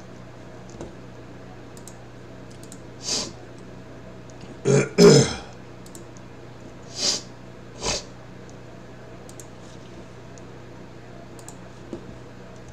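A person clears their throat in two quick rough pushes about five seconds in, with short breathy noises a couple of seconds before and after. A steady low electrical hum and faint computer-mouse clicks sit underneath.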